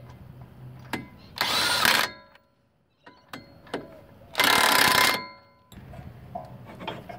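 Cordless impact wrench spinning and hammering wheel-spacer nuts onto the hub studs: two short bursts of about half a second each, some three seconds apart, with small clicks between them. Light metallic knocks follow near the end.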